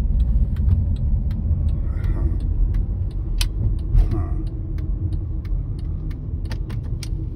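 Car driving, heard from inside the cabin: a steady low rumble of engine and road noise, with scattered light clicks and a short knock about four seconds in.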